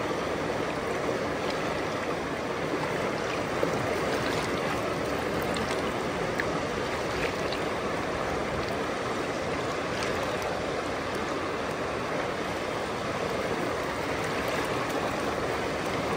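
River water rushing steadily over rocks and around a gold pan being worked in the shallows, with a few faint clicks.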